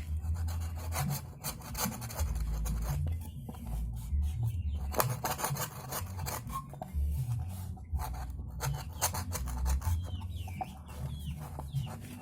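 Repeated rasping, scraping strokes of a hand tool working bamboo, with handling knocks. A rooster crows near the end.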